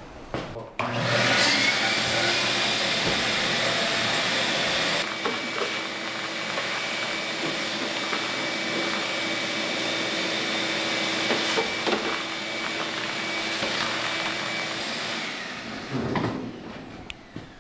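Vacuum cleaner switched on about a second in, running steadily as its hose sucks dirt and debris out of a car door, then winding down near the end.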